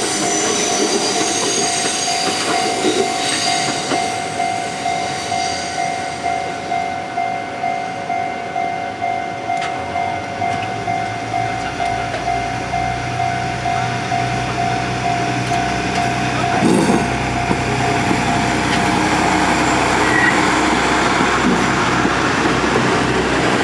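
Japanese level-crossing warning bell ringing in a steady repeating ding, about two a second, which stops abruptly about two-thirds of the way through. From about ten seconds in, the low engine rumble of a KiHa 11 diesel railcar set joins it and continues, with rail noise building towards the end.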